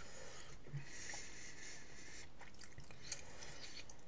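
Faint clicks and soft squelches of a metal fork cutting into a soft suet pudding in gravy and tapping the plate, over a steady hiss.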